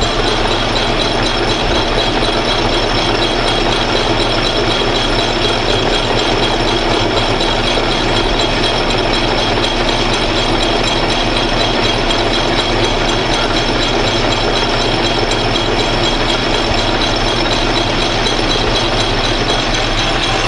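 Atlas metal lathe running steadily under power with a steady high whine, its chuck spinning while the tool faces down the end of a brass tube.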